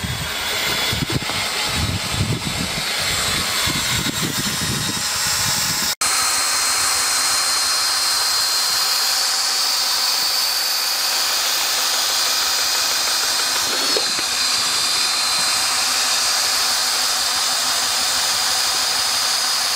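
Power drill spinning a mixing paddle through sheetrock joint compound thinned with water in a bucket. It sounds uneven for the first few seconds, then settles into a steady motor whine.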